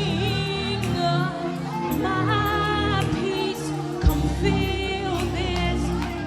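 Gospel worship music: a singer holding long notes with vibrato over a band with steady bass, and a single low thump about four seconds in.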